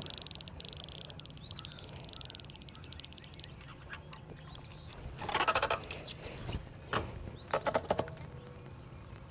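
Ducks quacking in short pulsed bursts, loudest about five seconds in and again around seven to eight seconds, with a few faint high chirps from small birds between them.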